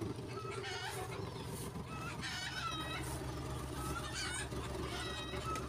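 Chickens clucking and cackling, a short call about once a second, over a low steady hum.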